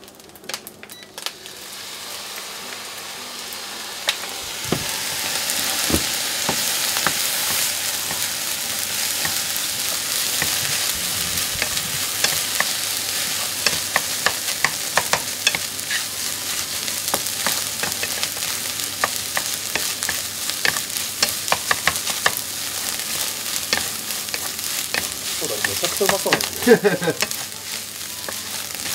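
Fried rice stir-frying in a nonstick frying pan: a steady sizzle that builds over the first few seconds, with frequent clicks and scrapes of a wooden spatula stirring and tossing the rice against the pan. A short low-pitched sound near the end.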